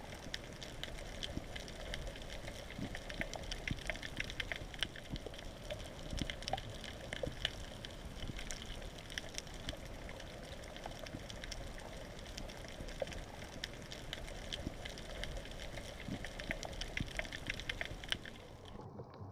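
Underwater ambience: a steady watery hiss with dense, fine crackling clicks throughout. The upper part of the sound cuts off shortly before the end.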